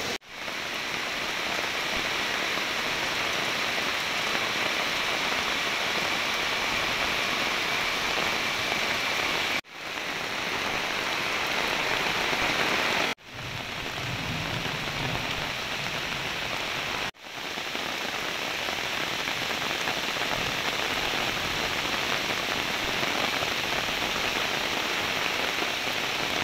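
Heavy rain falling steadily on puddles and muddy ground. The sound cuts out briefly three times.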